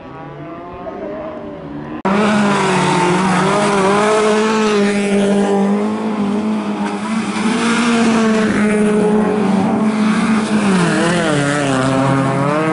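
Bilcross cars' engines running hard and revving, their pitch rising and falling. The sound jumps abruptly louder about two seconds in.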